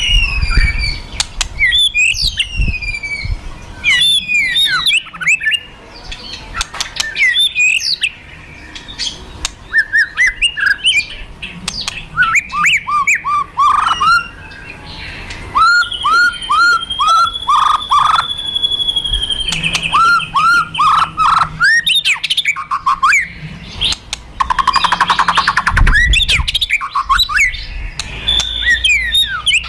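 White-rumped shama (murai batu) giving loud, aggressive fighter song: quick falling whistles, runs of rapid repeated notes, and a harsh crackling rattle (kretekan) a little over three-quarters of the way through. It is the song of a bird in a fighting mood, used to provoke other shamas into singing.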